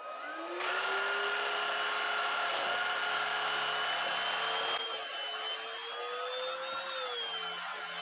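Hericaine H11 cordless stick vacuum with its bristle-brush floor head running and sucking up torn tissue paper. The motor whine rises as it spins up at the start, with louder suction noise for about four seconds, then the sound drops quieter and the whine wavers slightly for the rest.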